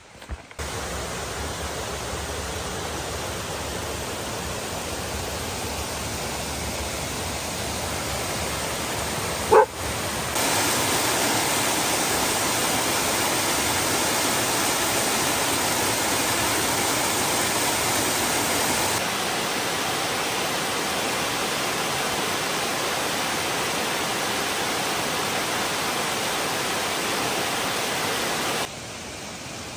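Waterfalls rushing over rock ledges: a steady roar of falling water that steps louder about ten seconds in and softer again later. About nine and a half seconds in, a dog gives a single short yip.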